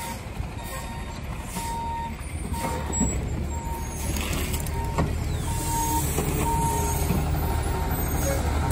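Garbage truck's reversing alarm beeping at an even pace over its CNG engine running, with a few knocks; the engine grows a little louder in the second half.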